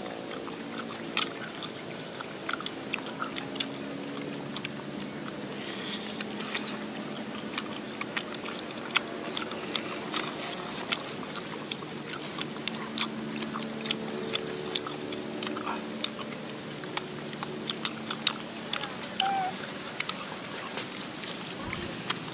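Close-up eating noises as people chew and pick apart cooked soft-shelled turtle meat by hand: irregular wet clicks, smacks and small cracks. A thin steady high tone runs underneath.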